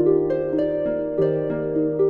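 Background music: a gentle line of single notes, each starting sharply and left to ring, about three notes a second.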